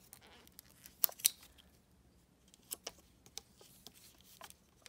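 Hands handling a small plastic-wrapped toy package: scattered clicks and taps, two of the loudest close together about a second in, fainter ones later.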